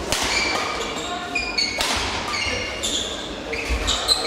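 Badminton rally: players' court shoes squeaking sharply and repeatedly on the hall floor, with several sharp racket strikes on the shuttlecock.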